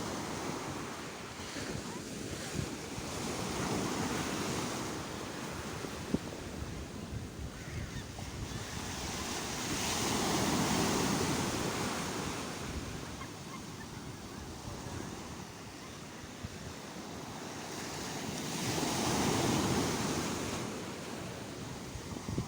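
Sea waves breaking, the surf swelling up and falling back in slow surges, with the two biggest waves near the middle and near the end.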